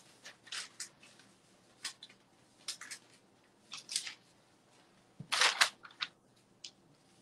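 Sheet of paper rustling and crinkling as it is slid inside boxer shorts and smoothed flat by hand, in short crisp bursts, the loudest cluster about five seconds in.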